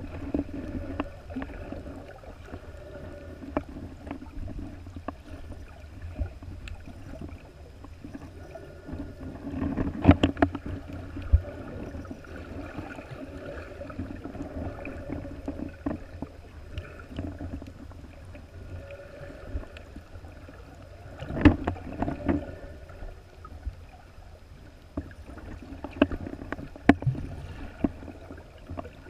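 Muffled underwater water noise: a steady low rumble with scattered clicks and knocks. The loudest knocks come about a third of the way in and again about three-quarters through.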